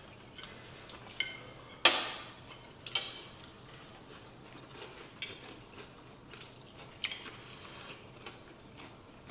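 Forks and knives clinking and scraping on plates as pieces of fried chicken are cut: several sharp clinks, the loudest about two seconds in.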